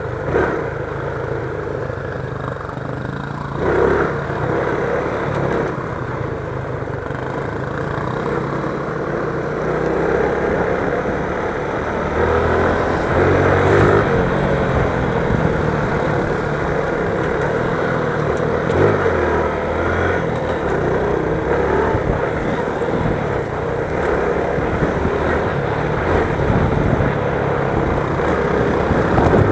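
Motorcycle engine running continuously, its low note shifting with the throttle, with a brief louder bump about four seconds in.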